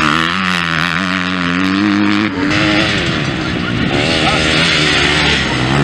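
Motocross dirt bike engines revving hard as the bikes ride past on the track. One engine's pitch climbs steadily for about two seconds, then the sound changes to another bike's engine for the rest.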